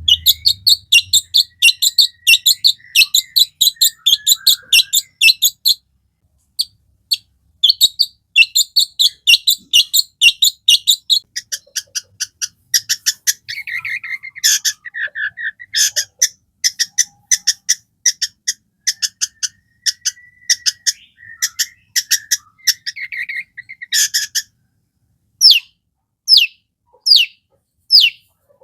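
Long-tailed shrike (cendet) singing loudly: a very fast, high-pitched chattering of rapid notes, breaking off briefly twice, then a lower, faster trilling warble, and near the end a run of separate falling whistles about one and a half a second.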